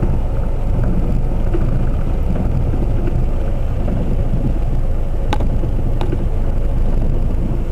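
A vehicle's engine running at low speed, heard from inside the cabin as a steady low rumble, with two sharp clicks a little past the middle.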